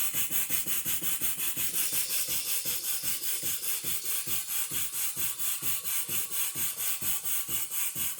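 A half-horsepower Sipp steam engine chuffs steadily at about five beats a second while driving a miniature table saw. A rasping, hissing sawing sound comes from the blade cutting wood. The saw is on the high-speed, lower-torque pulley, which cuts a little faster but bogs the engine down a little more.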